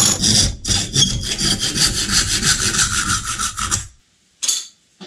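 Handsaw cutting through a piece of wood held in a vise, in quick, even strokes that stop about four seconds in. A brief scrape or knock follows shortly after.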